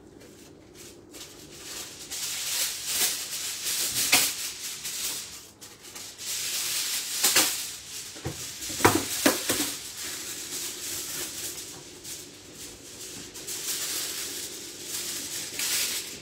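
Tomato sauce with thin beef steaks simmering in a frying pan over a low flame: a steady sizzling hiss with scattered pops and spatters, the loudest about four seconds in and again between seven and nine seconds.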